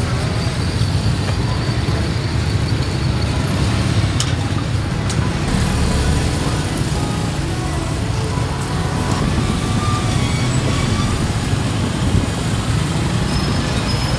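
Steady street traffic noise, a continuous low rumble of passing vehicles, with faint music in the background.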